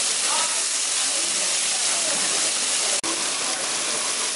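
Fish sizzling on a hot grill: a steady, loud hiss, broken by a momentary dropout about three seconds in.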